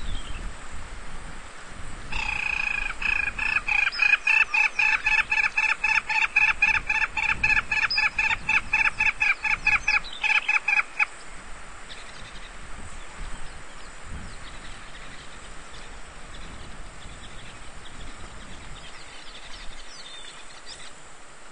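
African jacana calling: a loud, rapid run of repeated pitched notes, about four a second, starting a couple of seconds in and stopping abruptly after about nine seconds. Faint chirps follow.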